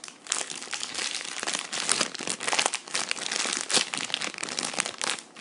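Crinkling and rustling of a squishy toy's plastic packaging being handled, a dense run of quick crackles with no pauses.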